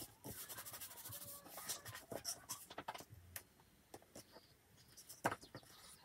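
Paper rustling and rubbing as hands press and smooth cut paper shapes onto a sheet of paper, with a sharp click about five seconds in.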